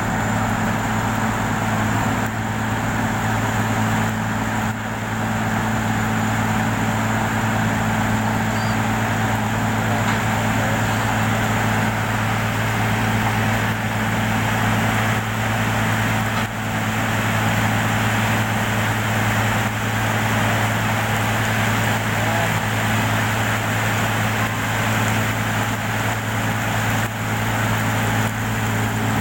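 A large engine running steadily at an even speed, a continuous low hum with no change in pitch.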